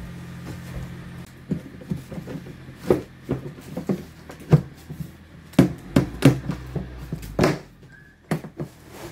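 Plastic grooming box being closed: a run of sharp plastic knocks and clicks as the lid and inner tray are pressed into place and the clasps are snapped shut, starting about a second in. The lid closes stiffly rather than smoothly.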